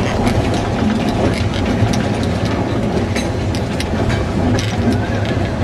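A narrow-gauge train carriage running along the track: a steady low rumble from the running gear, with irregular sharp clicks and clatter of the wheels over the rail joints.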